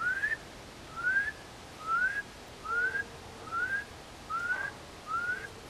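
A man whistling an imitation of birdsong: a short upward-sliding whistle, repeated seven times at an even pace of a little more than one a second.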